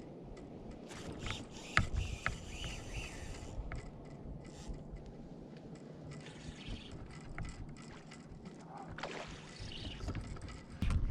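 Water sloshing and lapping against a kayak hull, with a few sharp knocks and scrapes on the hull between about one and three seconds in and again near the end.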